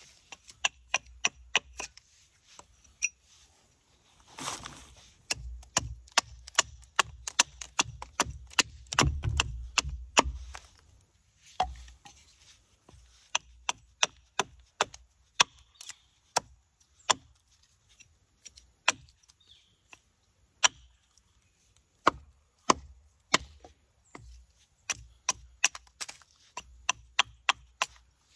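Carving tool cutting into a walnut spoon blank: a run of sharp, irregular strokes, one to three a second, with a denser stretch of heavier thumps between about five and ten seconds in.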